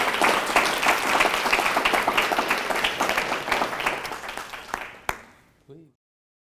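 Audience applauding, dense at first and thinning out, then cutting off suddenly about six seconds in.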